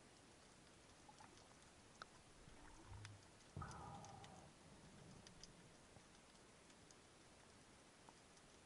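Near silence underwater: faint scattered clicks and crackles, with a brief muffled thump about three and a half seconds in.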